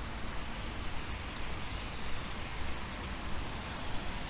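Steady city riverside ambience: distant road traffic as an even noise with a low rumble. A faint, thin high whistling tone comes in near the end.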